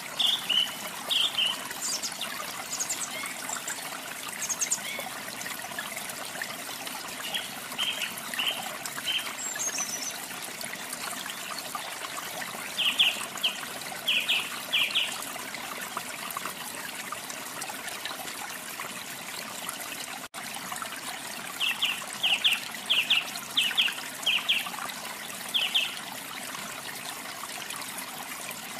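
Steady trickle of running water with small songbirds chirping over it in short runs of quick, high repeated notes, three times: near the start, about halfway, and again later.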